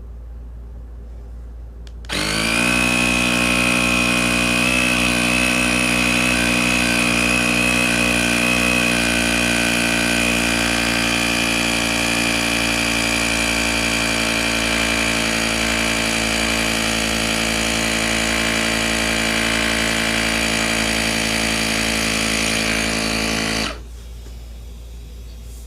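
Cordless electric tyre inflator's compressor running steadily as it pumps air into an e-bike tyre. It starts about two seconds in and cuts off abruptly near the end.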